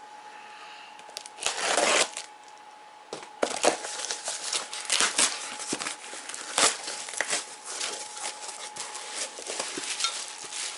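Foam packing peanuts rustling and squeaking in a cardboard box as a hand digs through them, with the box's flaps scraping. There is a loud rustle about a second and a half in, then a long stretch of irregular crinkling and clicking as a bubble-wrapped part is pulled out.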